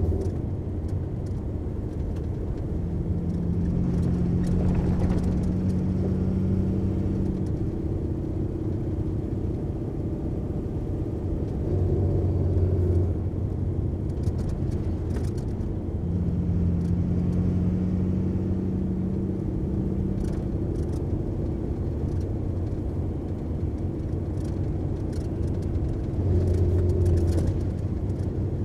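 MAN LE280B 4x4 truck's diesel engine running steadily while driving, its pitch rising and falling every few seconds as the revs change.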